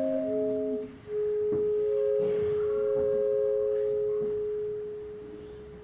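A clarinet quintet holding long sustained notes: a held chord breaks off about a second in, then one long low note sounds with a higher note held above it for a while, the whole fading away near the end.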